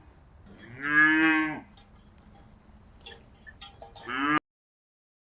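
Cow mooing: one long moo about a second in, then a second, rising moo near the end that cuts off suddenly.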